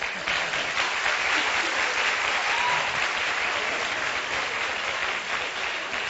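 Studio audience applauding, coming in at once and thinning out near the end.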